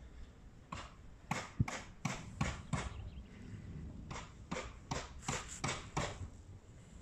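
Footsteps: two runs of about six quick, sharp steps each, roughly three a second, with a pause of about a second around the middle.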